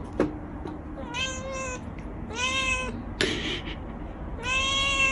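Domestic cat meowing three times, the last call the loudest and held for about a second.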